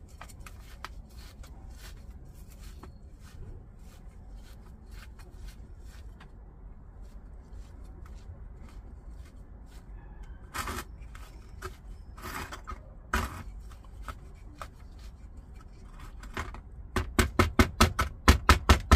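Coarse gritty potting mix shifting and clicking in a small ceramic pot as it is worked around a succulent with metal tweezers, with scattered light ticks and a few sharper ones. Near the end a quick run of louder knocks, about four a second, as the pot is tapped down on the tray to settle the mix.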